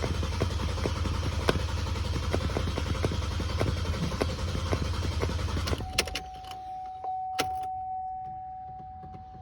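GMC Acadia's starter cranking the engine with an even rhythmic ticking, without the engine catching: a no-start. About six seconds in the cranking stops with a couple of sharp clicks, and a steady single-pitch warning tone sounds.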